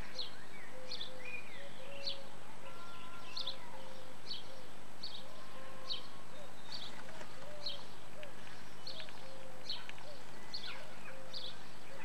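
Repeated short, high animal chirps, evenly spaced at about one every two-thirds of a second, with softer lower notes and a few longer held tones in between.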